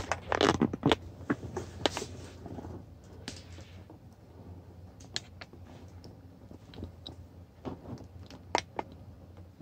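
Handling noise of a hand-held camera being moved around a metal tool on a table: scattered small clicks and rustles, bunched in the first second, again around five seconds in, and near the end.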